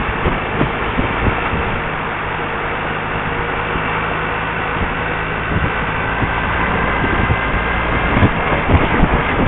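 Motorcycle engine running at a steady speed on the move, under a steady rush of wind and road noise with low buffeting thumps on the microphone.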